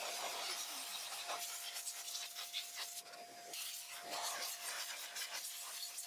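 Handheld electric air duster blowing dust out of a desktop PC case: a steady rushing hiss of air with a faint, even motor whine underneath.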